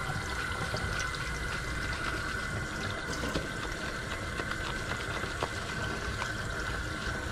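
Kitchen faucet running a steady stream into a stainless steel sink, with small splashes as hands scrub a wet dog under the water.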